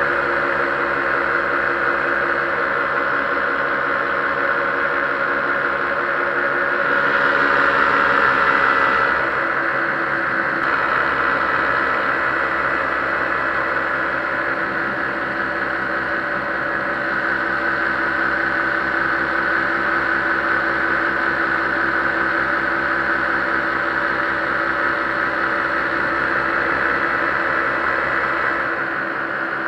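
Paramotor engine and propeller droning steadily in flight, swelling for a few seconds about seven seconds in.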